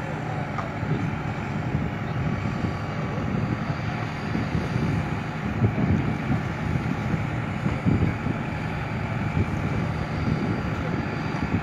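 Tractor engine running steadily as it slowly pulls a potato-planting rig, with wind on the microphone.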